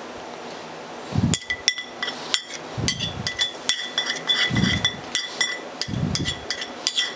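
A spoon mixing herbal medicine powder into honey in a small bowl: repeated clinks and taps against the bowl, starting about a second in, with ringing tones after the taps and a few dull thuds.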